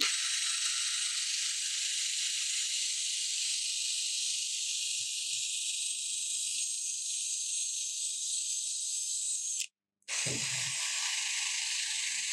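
Cordless Ryobi drill spinning a small wire wheel against a cast-iron bench vise, scrubbing off rust: a steady, loud, high hiss of bristles on metal over the drill motor's hum. It cuts off suddenly about ten seconds in and starts again a moment later.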